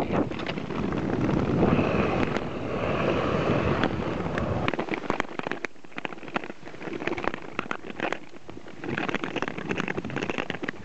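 Nordic touring skates scraping and gliding on black lake ice, with many sharp taps of ice-testing poles striking the ice. Wind rumbles on the microphone for the first few seconds, then drops away, leaving the clicks and scrapes clearer.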